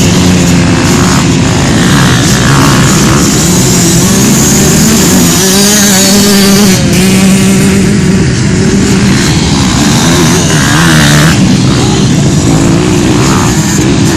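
Many off-road motorcycle engines running at once, a loud overlapping drone, with engines revving up and down here and there.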